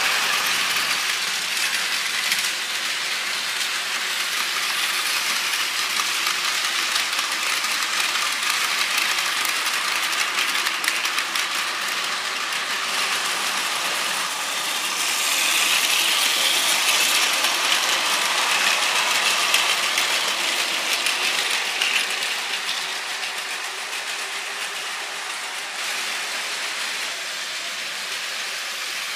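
Battery-powered Plarail toy trains running on plastic track: the steady whirr of their small motor gearboxes with rapid clicking of wheels over the track joints, louder for several seconds around the middle.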